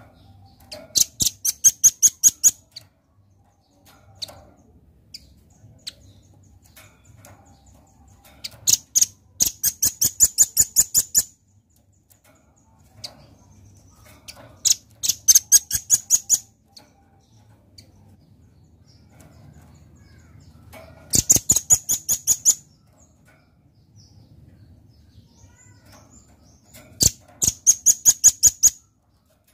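Velvet-fronted nuthatch calling: five bursts of rapid, sharp repeated notes, each burst lasting one to three seconds, separated by pauses of several seconds.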